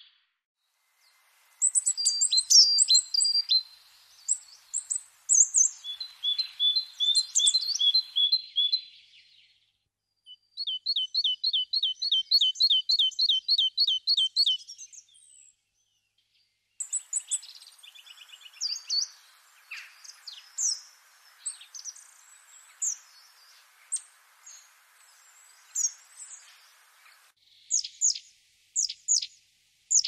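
Songbirds singing and chirping in high, quick phrases, including a fast run of evenly repeated notes, about five a second, a third of the way in. The sound drops out briefly near the start and again around the middle.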